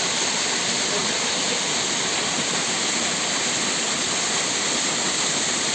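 Steady rush of flowing water, as from a stream or small waterfall, an even hiss that does not change.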